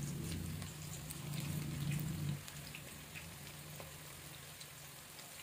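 Oil crackling and sizzling in a kadai as pinches of bread pakora batter deep-fry, with scattered small pops. A low rumble runs under it for the first couple of seconds, then stops.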